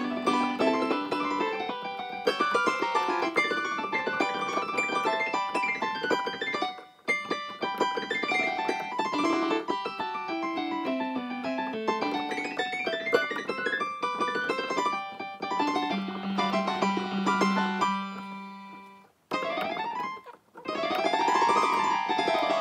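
Piano music played on an electric keyboard: quick runs of notes with short breaks about seven seconds in and again near nineteen seconds, then a sweep up the keys and back down near the end.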